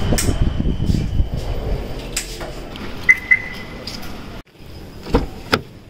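Two short electronic beeps about a quarter second apart, then, a couple of seconds later, two heavy thuds close together: car doors being shut.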